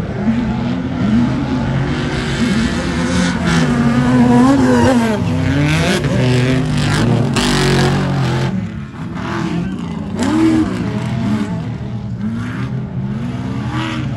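Off-road race trucks and buggies running hard on a dirt course, their engines revving up and down as they accelerate through the turns, with a brief dip about nine seconds in.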